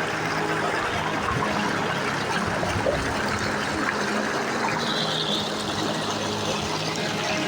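Steady rushing of floodwater, with a faint low engine-like hum underneath.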